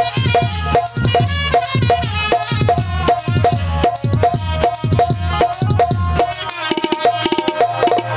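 Instrumental folk music from a jatra stage band. Hand drums keep a steady beat, their low strokes dropping in pitch, with bright high percussion on each beat and a held melody note. A quick drum roll comes near the end.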